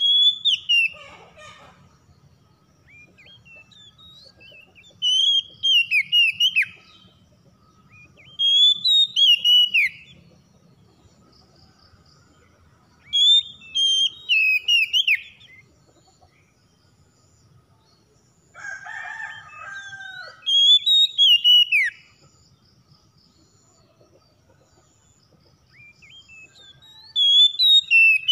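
Oriental magpie-robin singing: six loud phrases of rapid, high whistled notes, each a second or two long and a few seconds apart. A lower, different call sounds about two-thirds of the way in.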